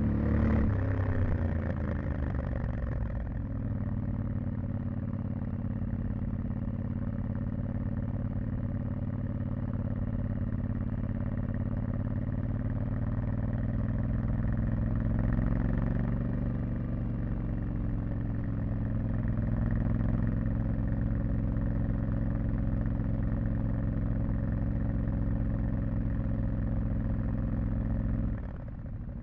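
Yamaha Ténéré 700's parallel-twin engine with stock exhaust, heard onboard, dropping in revs over the first few seconds and then running steadily at low revs. The revs lift slightly and fall back around the middle, and the engine note drops lower and quieter shortly before the end.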